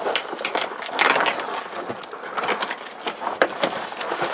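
Rustling and crinkling as a folded fabric exterior insulating windscreen cover is handled, with many irregular small clicks and scrapes.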